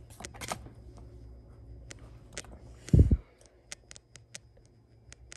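Trading cards being handled and slid one behind another in the hands, giving a scatter of light clicks and rustles. A single low thump about three seconds in is the loudest sound.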